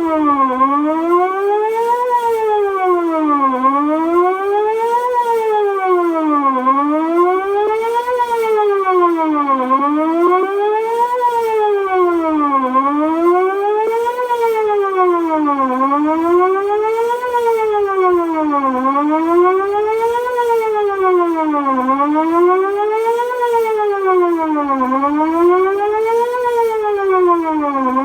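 Outdoor emergency warning siren sounding a wail during a test, its pitch rising and falling steadily about once every three seconds.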